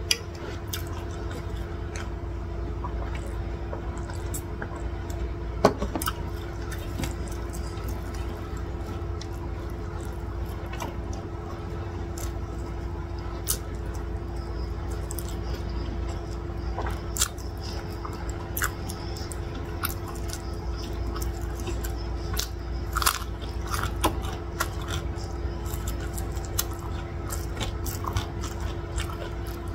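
A person eating rice and chicken by hand: chewing and biting with wet mouth clicks, and fingers gathering rice on the plate, as scattered short clicks over a steady low hum.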